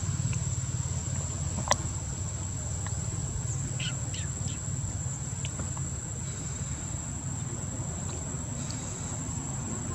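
Outdoor ambience: a steady, thin, high-pitched insect whine over a low rumble, with one sharp click a little under two seconds in and a few faint short chirps around four seconds in.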